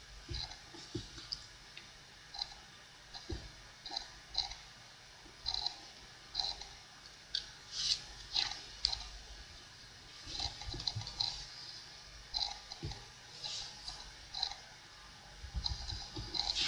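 A deck of playing cards being handled and laid on a wooden tabletop: irregular soft clicks and snaps of the cards, with a few low thumps on the table.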